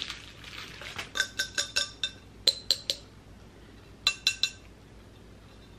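Square drinking glasses clinking as they are unpacked and handled, in three quick runs of light clinks, each with a short glassy ring.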